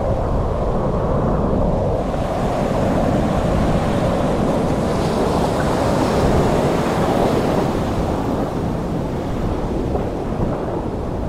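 Ocean surf breaking and washing around a camera held at water level, a steady rush of waves and foam with wind rumbling on the microphone. The wash grows brighter and louder from about two seconds in and eases off again near the end.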